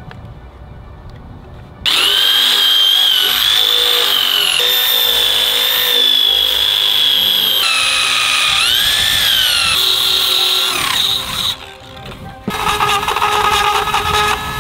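A high-speed woodworking power tool starts abruptly about two seconds in and runs with a high whine. Its pitch sags and recovers several times as it is loaded in the wood, then it cuts out. After a short lull, a lower wavering machine sound starts.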